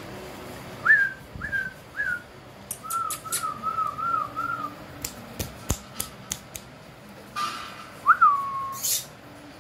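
A person whistling in short, clean notes: three quick whistles that rise and fall, then a warbling run of five lower notes, and near the end one longer whistle that drops and holds. A scatter of sharp clicks falls between the whistles.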